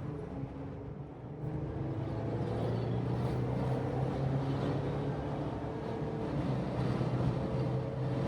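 Jeep Gladiator's V6 engine pulling steadily as it accelerates up to highway speed, heard from inside the cab with the sunroof open. Wind and tyre noise fill the background, and the sound grows a little louder after about a second.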